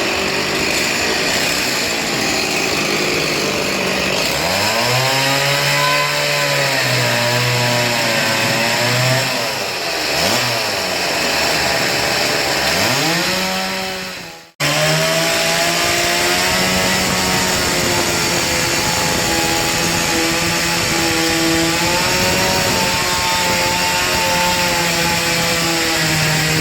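Chainsaw running at high revs while cutting wood, its pitch dropping and rising again several times. It cuts out abruptly about halfway through, then runs on with small changes in pitch.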